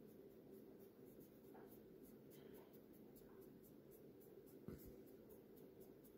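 Near silence: faint rubbing of fingertips dabbing cream make-up onto skin, with one light knock about three-quarters of the way through.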